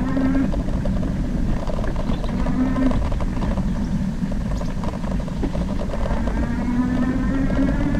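E-bike drive motor whining in spells, at the start, briefly a few seconds in, and again near the end with its pitch climbing a little. Underneath is a steady rumble of wind and tyre noise from riding.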